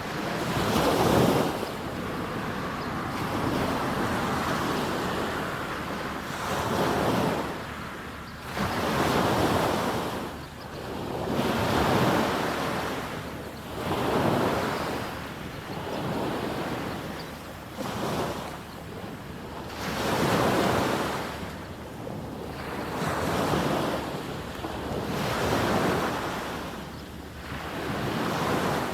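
Small waves breaking and washing up a sandy beach, each surge swelling and falling away about every two seconds, with some wind on the microphone.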